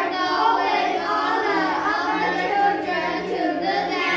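Children's voices reading a sentence aloud together in unison.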